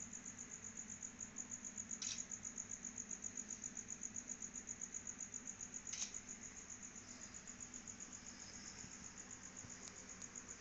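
Faint, steady high-pitched chirping like an insect's, an unbroken run of even rapid pulses, with a couple of soft clicks about two and six seconds in.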